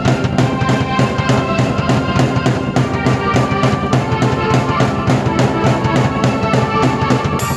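Drum kit played in a steady beat, about four hits a second, together with sustained keyboard chords and melody, both played at once by one performer.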